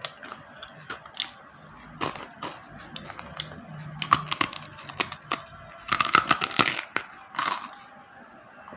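Slate pencils being bitten and chewed: a run of sharp, dry crunches and cracks, densest about six to seven seconds in.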